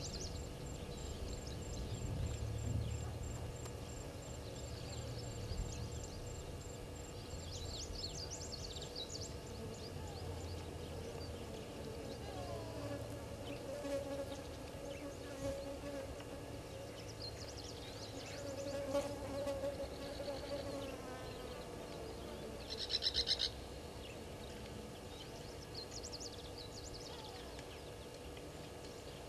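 A flying insect buzzing close to the microphone, its pitch wavering and gliding, loudest through the middle. Scattered high bird chirps and a brief rapid trill about three-quarters of the way in, over a low outdoor rumble.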